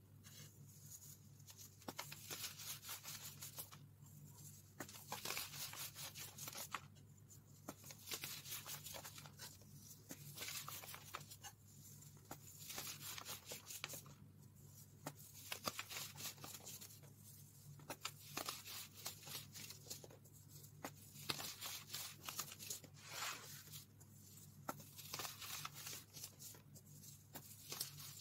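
Blocks of baked baking soda crushed and crumbled by hand into powder, a crumbly crunching in repeated bursts of a second or two with short pauses between.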